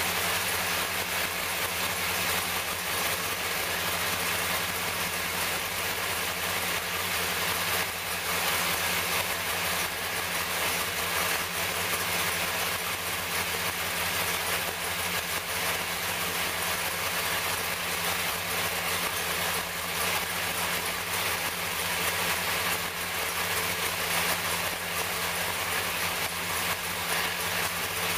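434 cubic-inch small-block Chevrolet V8 racing engine running on an engine dynamometer, holding a steady, unchanging speed throughout.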